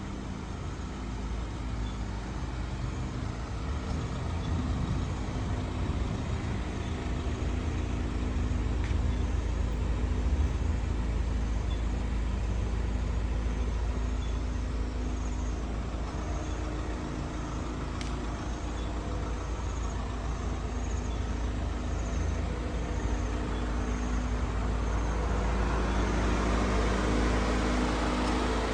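Vehicle engine running steadily with a deep rumble. Through the middle there is a faint high ticking, a little more than once a second.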